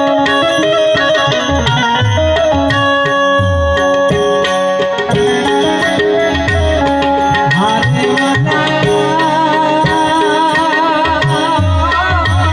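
Instrumental passage of a Gujarati prabhatiyu (devotional morning hymn): a harmonium plays held melody notes over a steady tabla beat, and the melody line wavers near the end.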